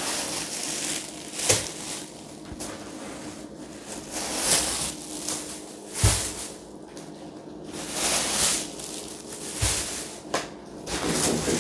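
Groceries being taken out of shopping bags: the bags rustle in repeated bursts, with a few soft knocks as items are set down.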